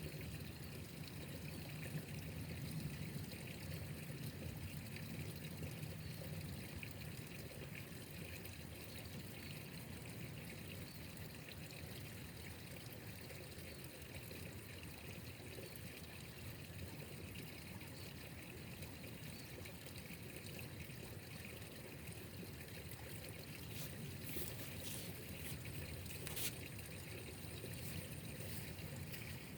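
Water trickling and pouring steadily, with a few sharp clicks near the end.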